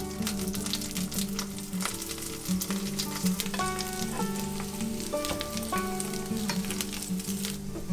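Zucchini slices sizzling in hot oil in a frying pan as they are turned over with a fork and spatula, with light clicks of the utensils against the pan. The sizzle drops away just before the end.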